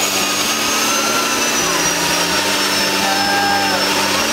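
Homemade two-stage jet engine built from two turbochargers running steadily: a loud rushing roar with a thin high turbine whine that drifts slowly lower.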